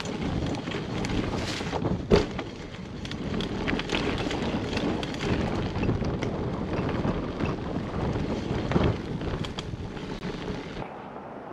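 Wind buffeting the microphone while a Hyper Explorer mountain bike rolls along a dirt trail, its tyres crunching over pine needles. The bike clatters and knocks over bumps, with the sharpest knock about two seconds in.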